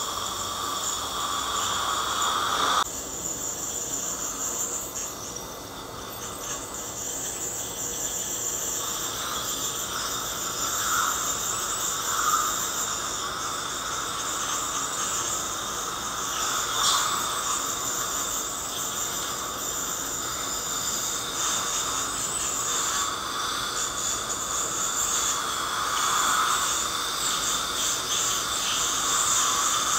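Ultrasonic dental scaler running continuously against the teeth, a steady high-pitched whine with the hiss of its water spray and the dental suction. The sound shifts abruptly about three seconds in.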